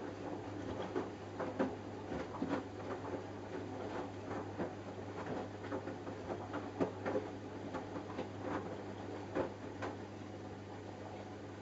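Samsung Eco Bubble washing machine on a 40°C cotton wash: a steady motor hum while wet laundry and water tumble and splash in the turning drum with irregular soft knocks, the tumbling easing off near the end.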